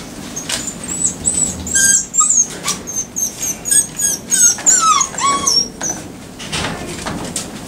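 Eight-week-old puppies whining and yelping: many short, high-pitched squeals, several falling in pitch, most of them packed into the middle of the stretch.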